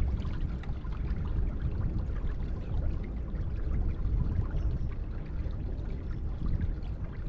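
Water rushing and splashing along the hull of a boat under way: a steady noise with a heavy, uneven low rumble.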